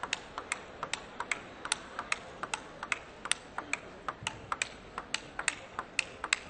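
Table tennis ball rally: the ball clicking alternately on the table and off the rubber of the players' bats in a steady, unbroken exchange, about four to five clicks a second.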